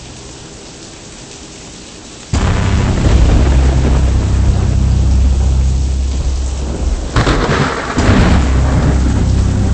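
Thunderstorm: after a quieter stretch, a sudden loud thunderclap about two seconds in that rolls on as a deep rumble under steady rain hiss, surging again near the end.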